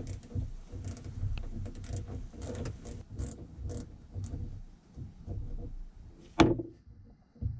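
Small clicks, taps and rattles of a hand working metal fittings at a boat fuel tank's pickup, with one sharper clack about six and a half seconds in.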